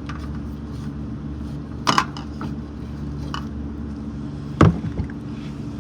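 Steady hum of a running electric fan, with a sharp click about two seconds in and a louder knock near the end.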